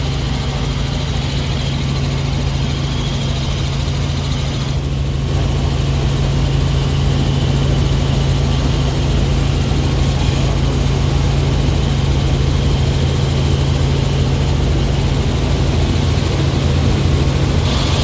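Helicopter in flight heard from inside the cabin: a steady, loud low drone of engine and rotor.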